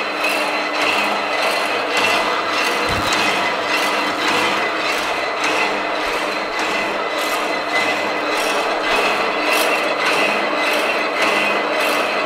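Peerless Mechan-i-Cut heavy-duty power hacksaw cutting through steel pipe on automatic feed: the blade rasps through the metal on each stroke in a steady, even rhythm, over the hum of its electric motor.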